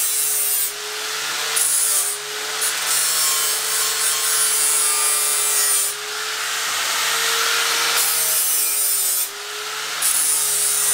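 Angle grinder deburring the cut edges of sheet steel: a steady motor whine with the hiss of the disc grinding the metal, swelling and easing as the disc is worked along the edge.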